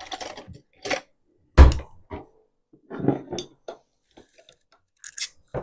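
Glassware and dishes handled on a stone countertop: a string of clinks and knocks, the loudest a heavy thump about one and a half seconds in.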